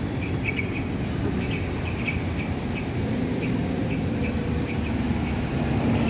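Steady low traffic rumble, with faint short bird chirps repeating a few times a second over it.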